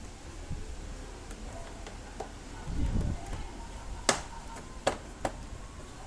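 Sharp clicks and knocks from tools and parts being handled during hands-on scooter repair: a dull thump just under three seconds in, then one loud click about a second later and two lighter ones soon after.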